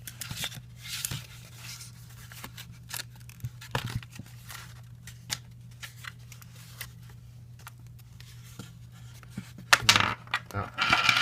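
Cardboard VR headset pieces being handled and folded by hand: scattered light clicks and scrapes of cardboard, with a louder scratchy rustle near the end, over a steady low hum.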